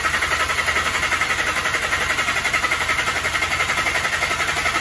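Starter cranking a VW Jetta's 1.8-litre turbo four-cylinder engine with the throttle held wide open, so it turns over without starting. The cranking goes in an even, quick rhythm of compression pulses, every cylinder contributing equally on a relative compression test.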